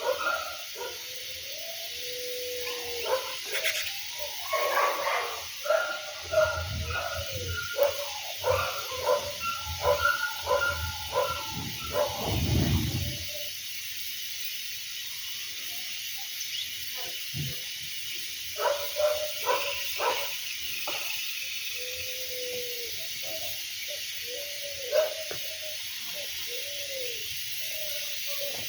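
Repeated short animal calls in two bouts, the first dense and the second sparser after a few seconds' lull, over a steady high hiss, with a low rumble partway through the first bout.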